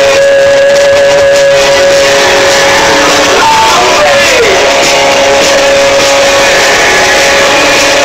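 Live band playing loud, recorded close up so it sounds harsh and crushed. One long held note runs throughout and dips in pitch briefly about halfway through.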